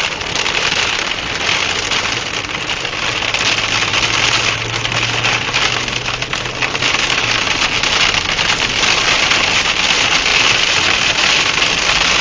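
Heavy rain and storm wind battering a vehicle near a tornado, a loud rushing hiss that swells and ebbs, with the vehicle's engine humming steadily underneath for part of it.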